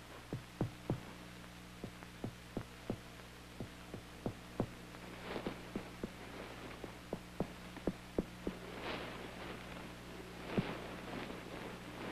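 A feverish child's heartbeat, heard close up as the doctor listens at the chest: quick soft thumps, about three a second, in uneven runs over a steady low hum.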